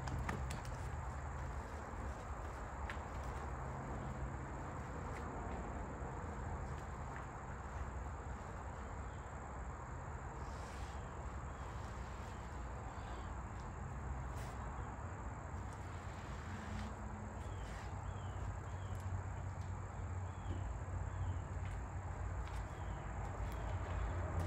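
Outdoor background with a steady high insect buzz over a low rumble, a few faint clicks, and a run of short faint chirps through the second half.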